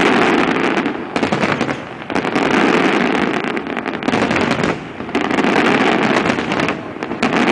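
A dense barrage of aerial fireworks bursting and crackling almost without pause, with a few brief lulls.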